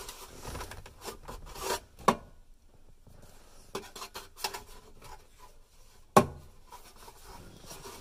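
Hands working the flasher relay and plastic wiring connectors behind a truck's lower dash: rubbing and scraping on plastic, with two sharp clicks, one about two seconds in and one about six seconds in.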